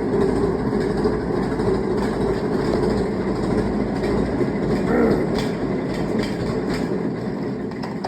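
Steady rumbling, rattling noise of a vehicle running, with a dense clatter throughout; it drops away right at the end.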